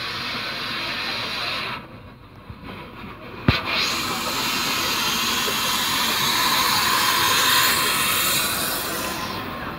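Narrow-gauge steam locomotive hissing steam: a loud, steady hiss that dies down for a moment about two seconds in, then swells again after a single sharp click and is loudest near the end.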